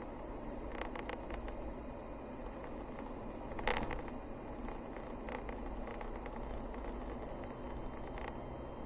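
A car driving on a narrow forest road: steady engine and tyre rumble, with scattered small clicks and rattles and one sharper knock about four seconds in.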